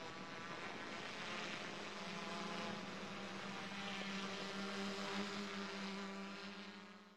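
Steady drone of an aircraft's engines heard from the chase plane, a low hum over a rushing noise, fading and cutting off at the very end.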